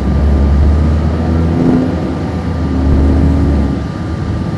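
Cummins ISC diesel engine of a 1999 Nova Bus RTS transit bus heard from on board while it drives, with the HVAC running. The low engine drone is strong, dips about a second and a half in, swells again, then eases off near the end.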